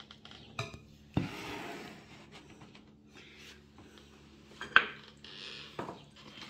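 Dishes and utensils being handled on a table: scattered clinks and rubs, with a short scraping rush about a second in and a sharp clink near the middle, the loudest sound.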